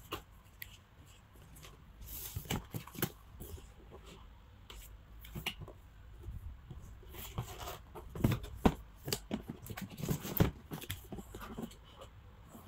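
Cardboard boxes being handled and pulled out of a larger cardboard carton: scattered rustling and sliding of cardboard, with a cluster of sharp knocks between about eight and ten and a half seconds in.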